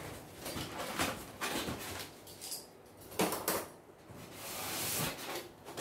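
Cardboard box and styrofoam packing being opened and handled: a series of scrapes and rustles, with a sharper knock about three seconds in.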